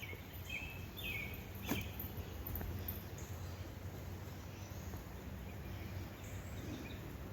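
Birds chirping now and then, short high calls scattered through, over a steady low outdoor rumble. A single sharp click about a second and a half in.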